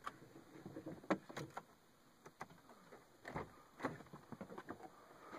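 Soft, scattered clicks, knocks and rustles of someone moving about inside a car cabin, with a handful of sharper knocks about a second in and again past the middle.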